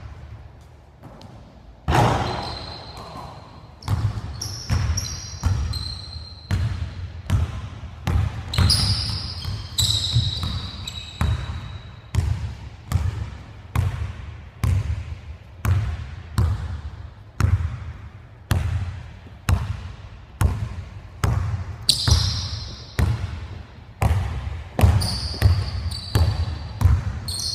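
Basketball dribbled on a hardwood gym floor, about three bounces every two seconds, starting about two seconds in, each bounce echoing in the hall. Short high sneaker squeaks on the court come in now and then.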